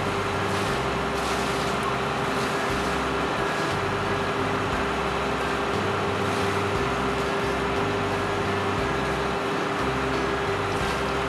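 A motor running steadily, an even mechanical drone with a constant hum that does not change.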